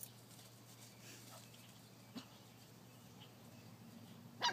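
Dogs at play: one short faint yip about two seconds in and a single loud bark near the end, with quiet between.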